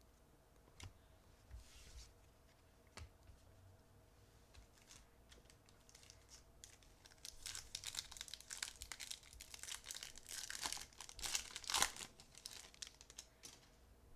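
A few light taps, then from about seven seconds in a Topps baseball card pack's foil wrapper being torn open and crinkled, the crackling loudest near the end.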